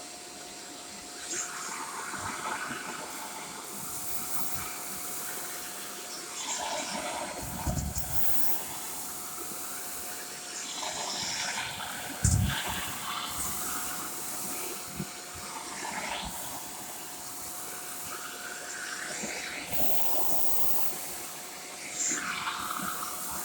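Shark corded vacuum cleaner running, a steady motor whine under a rush of air that swells and fades every few seconds as it is worked back and forth, with a couple of bumps, the loudest about twelve seconds in.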